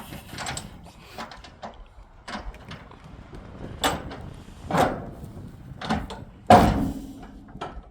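Knocks, bangs and scrapes from cargo being handled in and around a shipping container, with one heavy thump about two-thirds of the way through.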